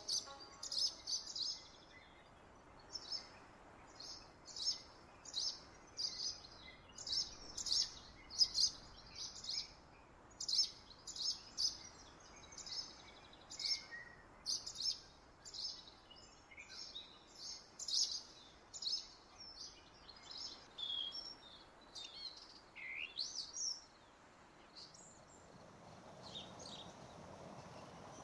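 Small birds chirping: quick runs of high chirps repeated about once a second, thinning out to a few scattered calls near the end, over faint outdoor background noise.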